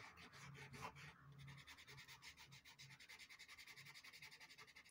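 Cotton bud rubbing pastel into Pastelmat paper to blend it: faint, quick, even back-and-forth scrubbing strokes.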